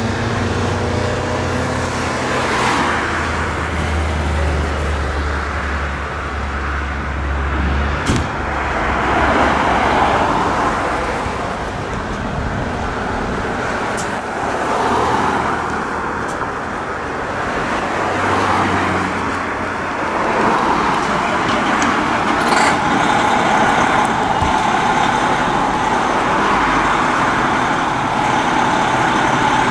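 Road traffic: cars passing one after another, each swelling and fading, with a low engine hum under the first several seconds.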